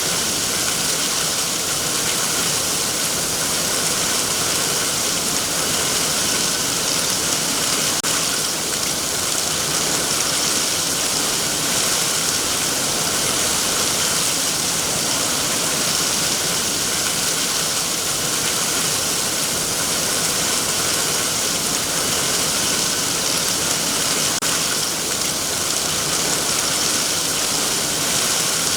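Heavy rain falling steadily on trees: an even, unbroken hiss that holds the same level throughout.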